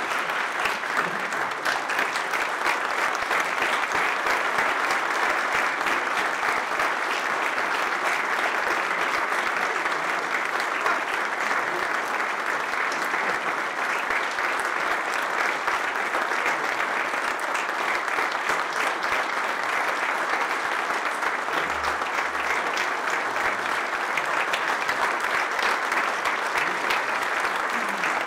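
Audience applauding steadily and without a break: sustained clapping at the close of a speech.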